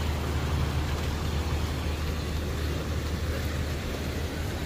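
Small motor scooter engine running close by, a steady low hum over a hiss, fading after about two seconds as it moves off.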